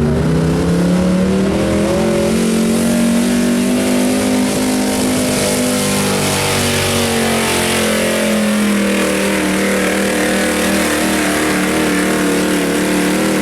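Pulling truck's engine held at high revs under heavy load during a sled pull. It rises in pitch in the first couple of seconds, then stays high with slight wavering.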